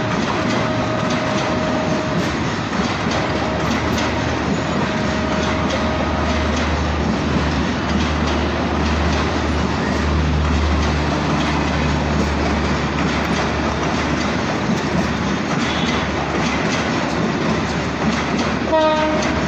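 Bangladesh Railway passenger coaches rolling slowly along the tracks: a steady rumble with wheels clicking over rail joints under a low engine drone. A thin squealing tone comes and goes in the first few seconds, and a brief higher tone sounds near the end.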